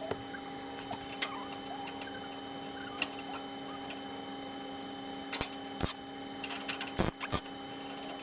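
Scattered light knocks and clicks of a sheet-steel repair panel being handled and pressed into place against a car body, the loudest about seven seconds in, over a steady background hum.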